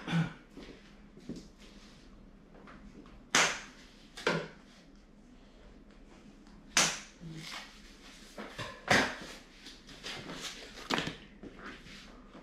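Sharp clicks and knocks from a folding treadmill's handlebar and console as they are handled and adjusted, with about five louder knocks a couple of seconds apart and smaller clicks between them.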